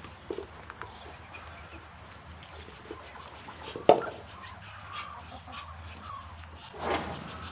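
Muscovy ducklings peeping while they peck grain from a wooden trough. A sharp knock about four seconds in is the loudest sound, and a short rustle comes near the end.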